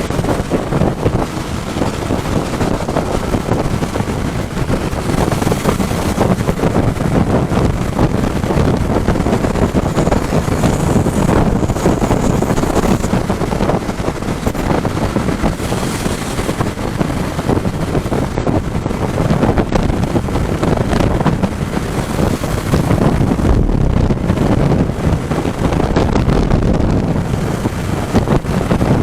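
Strong wind buffeting the microphone of a moving motorcycle: a loud, steady rush, with the bike's running noise underneath.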